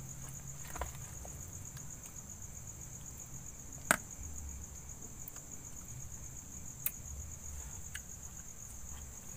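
Night insects trilling steadily in a high, pulsing chorus, with a few sharp clicks of a metal spoon against a plastic bowl as a mixture is stirred; the loudest click comes about four seconds in.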